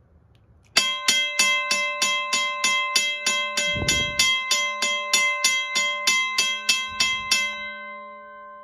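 Western-Cullen-Hayes second-generation mechanical railway crossing bell ringing loudly, its electromagnet-driven hammer striking the gong about three times a second, heard from the back with the rear cover open. It starts about a second in, the striking stops near the end, and the gong rings out and fades.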